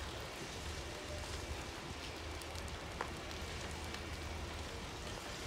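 A burning timber-roofed building crackling and popping, a steady noisy hiss scattered with small cracks, over a constant low rumble; one sharper crack about three seconds in.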